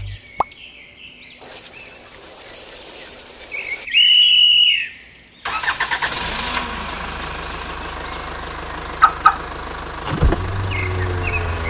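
A car engine running steadily with a low hum after some edited outro effects: a click, a rushing noise and a loud bright tone about four seconds in. Two sharp clicks come near the end.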